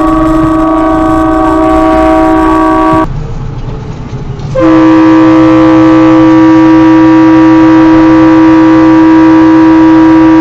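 Truck air horn held in a loud, steady multi-tone chord, cut off about three seconds in. After a short lull with engine and road noise, a second long horn blast starts about a second and a half later and holds to the end.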